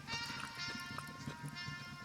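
Background music with held notes over a light, regular beat.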